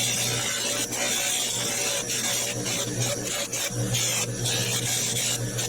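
Buffing wheel spinning in a drill press with the briar pipe's bowl rim pressed against it: a steady motor hum under a rubbing, hissing sound that comes and goes as the wood is pressed on and eased off.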